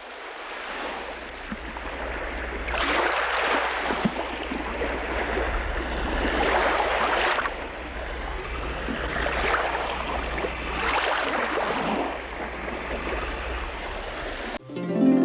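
Scuba diver breathing through a regulator, recorded underwater: a rushing of exhaled bubbles that swells and fades several times over a steady low hum.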